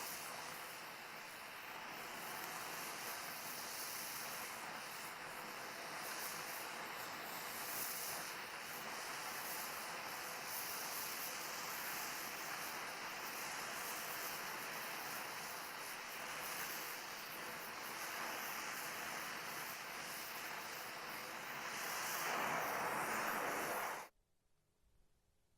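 Oxyacetylene torch flame hissing steadily as a gas-brazed bead is run. It swells a little louder shortly before it cuts off suddenly near the end.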